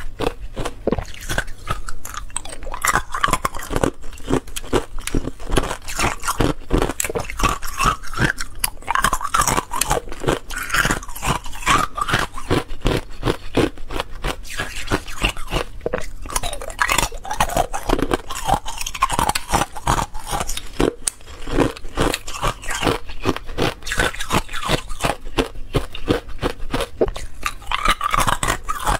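Thin, clear ice cubes being bitten and chewed: a dense, unbroken run of sharp, crisp crunches, several a second.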